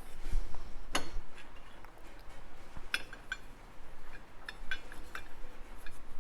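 Small metallic clicks and clinks from a screwdriver and the small screws being backed out of a Norton Atlas oil pump's backing plate. A sharp click comes about a second in, then a scatter of light clinks from about three seconds on.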